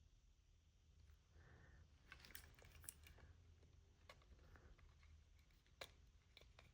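Faint small clicks and taps of small plastic remote-control parts being handled and pressed together, scattered irregularly from about two seconds in.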